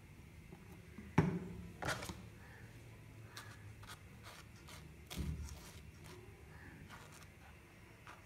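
Table knife scraping and spreading ketchup over a slice of soft white bread on a plastic cutting board, with light scrapes and ticks. A sharp knock about a second in, the loudest sound, with smaller knocks near two and five seconds.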